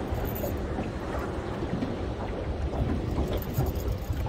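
Wind buffeting the microphone in a low, steady rumble over the wash of the sea around a small open boat.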